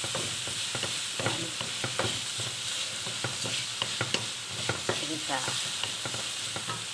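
Meat sizzling in oil in a frying pan, a steady hiss, while a wooden spatula stirs it, with many short clacks and scrapes of the spatula against the pan.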